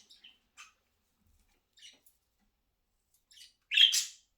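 Pet budgerigars giving short, high-pitched chirps: a few scattered calls, the loudest one near the end.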